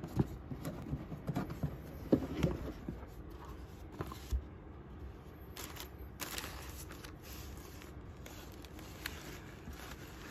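Cardboard shoebox lid handled and lifted off with a few dull knocks and scrapes. In the second half, crisp tissue paper rustles and crinkles as it is pulled open.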